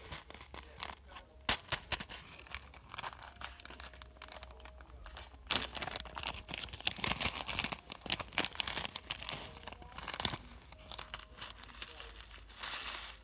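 Slime being squished and stretched by hand, giving irregular crackling and popping clicks, busiest in the middle.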